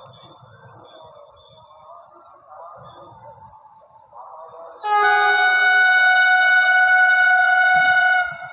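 Vande Bharat Express (Indian semi-high-speed electric train) sounding its horn as it approaches: one long, steady blast of about three and a half seconds, starting about five seconds in. Before it, birds chirp faintly.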